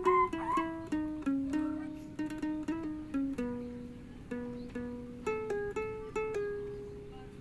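Instrumental background music: a slow melody of single plucked string notes, each one fading after it is struck, growing softer toward the end.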